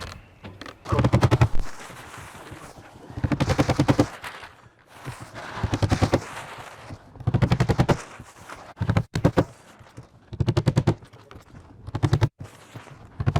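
A power tool hammering in short rapid bursts, about seven in all, each well under a second and one to two seconds apart, like fasteners being driven one after another into roofing.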